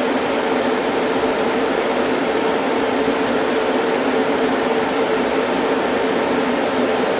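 Sun Enterprise 10000 server's cooling fans running with a loud, steady rush of air and a low two-note hum.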